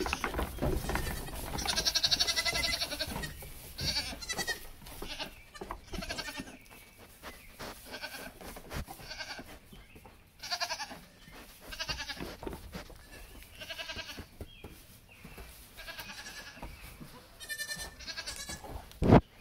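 Nigerian Dwarf goats bleating over and over, a dozen or so high calls each lasting about half a second to a second. One sharp knock near the end.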